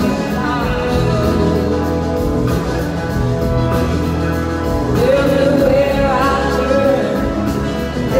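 A live band playing a soul-blues rock song with a woman singing lead; she holds one long note from about five seconds in.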